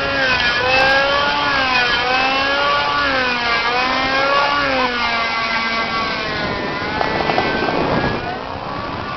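Thunder Tiger Raptor RC helicopter with a 35-size glow engine flying 3D aerobatics: the engine and rotor note rises and falls in pitch about once a second as it manoeuvres, with a short rough burst about seven seconds in, then fades as the helicopter climbs away.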